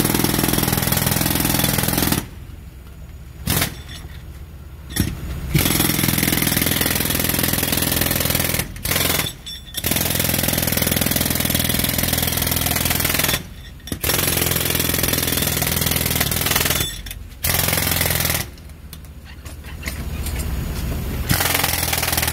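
Pneumatic jackhammer breaking up sidewalk pavement. It runs in long bursts of several seconds, with a few short pauses of a second or two between them.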